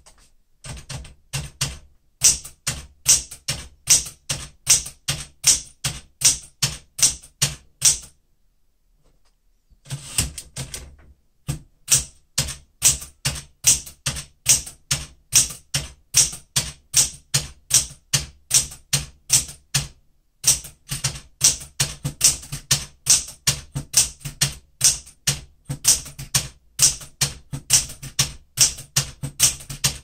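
Smith-Corona Galaxie Deluxe manual portable typewriter being typed at a steady pace, its typebars striking about two to three times a second. The typing stops for about two seconds around eight seconds in, with a few shorter breaks later.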